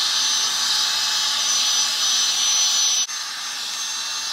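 Hot-air round brush dryer blowing: a steady rush of air with a thin high motor whine. About three seconds in, the sound drops suddenly and goes on quieter.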